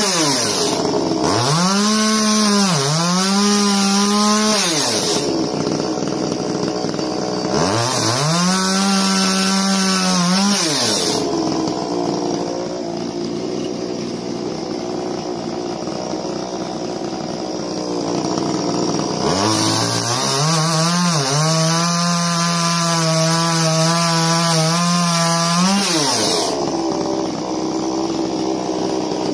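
Ryobi 50cc two-stroke petrol chainsaw revved to full throttle in three bursts of a few seconds each as it cuts through small red gum logs, with a high hiss from the chain while it cuts, dropping back to idle between cuts.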